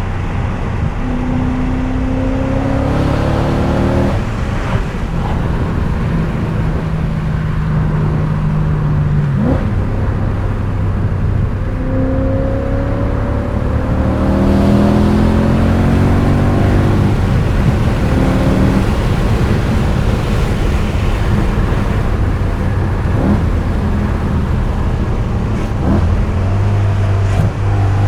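BMW E39 M5's 4.9-litre V8 under hard acceleration: the engine note climbs in pitch through the revs and drops back at each gear change, three times over, with steadier stretches between the pulls.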